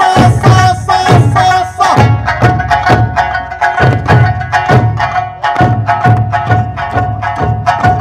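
Eisa drumming: large odaiko barrel drums and small paranku hand drums struck together on a steady beat, over Okinawan folk music carrying a long held melody note.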